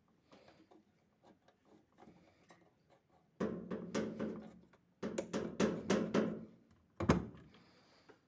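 Knocks, rattles and scrapes of a washing machine's casing and parts being handled while it is taken apart: small scattered clicks at first, then two bursts of clattering and a sharp knock near the end.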